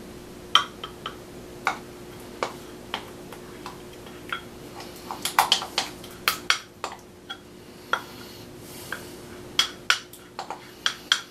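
A spoon knocking and scraping against a small bowl as thick cream yogurt is spooned out into a plastic mixing bowl. It makes a string of short sharp clicks, with quick runs of them about halfway through and again near the end.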